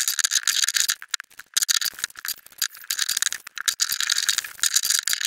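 Clear plastic shrink wrap on a plastic toy cauldron being cut with scissors and peeled off by hand, crinkling and crackling in a dense run of small clicks with a short lull about a second in.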